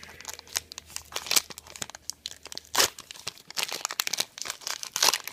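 Plastic wrapping on a blaster box of trading cards being torn open and crinkled by hand, an irregular run of sharp crackles.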